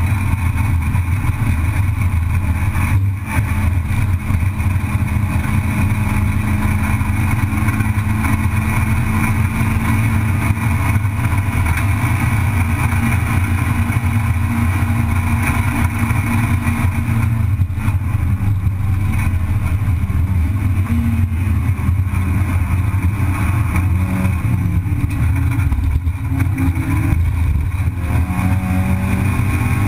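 Race car engine heard from inside the cabin, running at high revs under full throttle and holding a steady note for long stretches. Near the end the pitch drops and rises a few times as the driver lifts and shifts gear.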